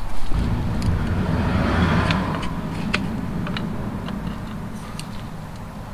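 Rumble of a motor vehicle that swells in the first second or two and then fades steadily away, with a few light clicks scattered through it.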